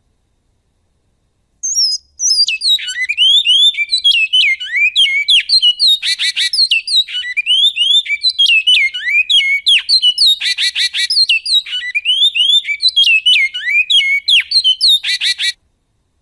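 Great-billed seed-finch (bicudo) singing in the 'canto goiano' style: a long, continuous run of quick sliding whistled notes, broken three times by fast rattling trills. The song starts about a second and a half in and stops shortly before the end.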